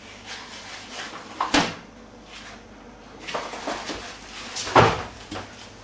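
Refrigerator door being shut amid kitchen handling noises: two sharp thumps, about a second and a half in and near the end, the second the louder, with lighter clatters between.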